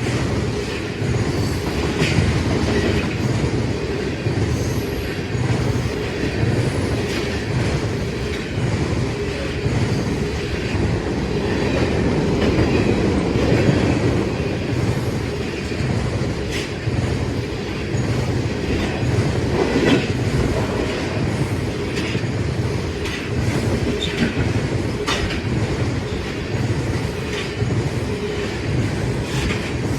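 Train cars rolling steadily past, wheels clacking in an even rhythm over the rail joints, with occasional sharper clicks.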